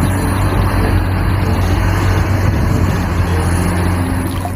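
A heavy vehicle engine running steadily with a deep hum, starting and cutting off abruptly.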